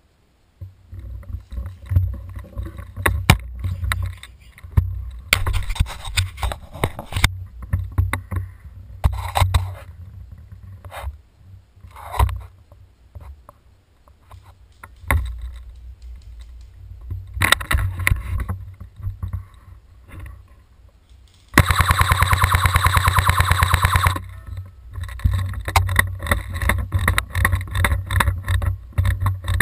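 Airsoft rifle firing one full-auto burst of about two and a half seconds, a rapid, even rattle, about 21 seconds in. Around it, low rumble and scuffing from the rifle being handled and the player moving over dry leaf litter.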